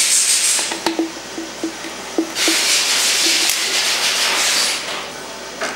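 Water pump bleed valve on a KTM 250 XC-F engine being opened to drain coolant into a plastic pitcher. A few light clicks come first, then about two seconds of steady hissing and trickling noise, and it stops sharply near the end.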